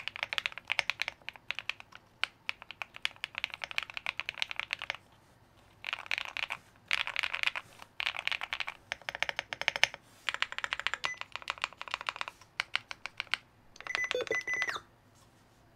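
Typing on a QK75 mechanical keyboard with lubed KTT Kang White v3 linear switches on an FR4 plate: quick runs of keystrokes in bursts with short pauses, a sound likened to typing on Lego. Near the end comes one short, dense flurry of keys with a faint ringing tone.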